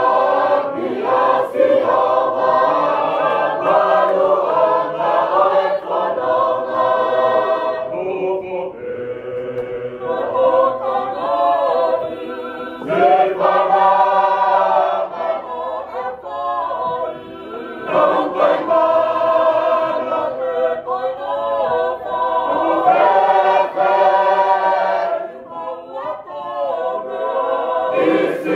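Tongan church choir singing a hiva usu, a traditional unaccompanied hymn, in several voice parts (melody, tenor and alto). The voices hold long phrases with short breaks between them.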